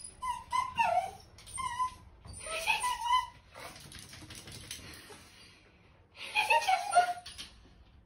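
A dog whining in several short, high-pitched bursts, the pitch sliding up and down, with a quieter gap in the middle.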